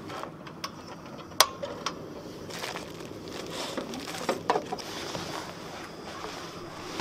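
A cassette gas stove is lit with one sharp igniter click about a second and a half in, and its burner then hisses under a stainless-steel kettle. Light clinks of a metal mug and rustling of a foil coffee bag come over it, most of them about four and a half seconds in.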